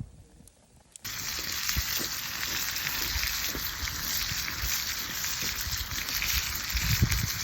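Food sizzling in a hot pan, a steady dense hiss that starts abruptly about a second in, with a few low knocks underneath.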